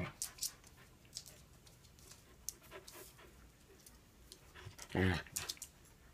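Samoyed panting, with scattered clicks of its claws on a hardwood floor and one short, low woof about five seconds in.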